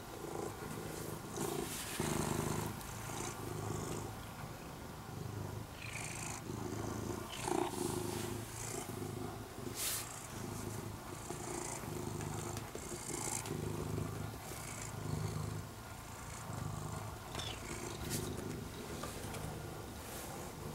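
A ginger-and-white domestic cat purring in steady rhythmic cycles while it rubs against a person's trouser legs, with faint fabric rustles.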